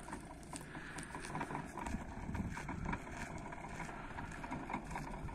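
A small van towing a wide magnetic sweeper, rolling along a concrete runway: a steady low rumble that swells about two seconds in, with scattered light clicks and wind on the microphone.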